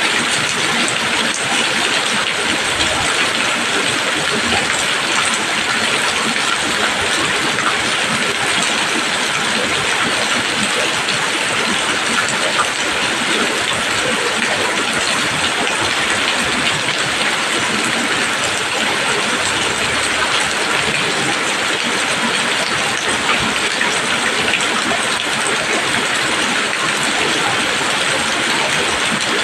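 Steady rain falling on leaves, a dense even patter without let-up.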